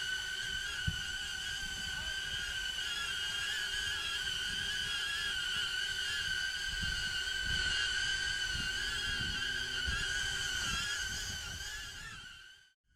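HoverAir X1 ProMax drone's propellers whining at a high, steady pitch that wavers slightly as it flies, over an uneven low rumble; the whine fades and cuts off near the end.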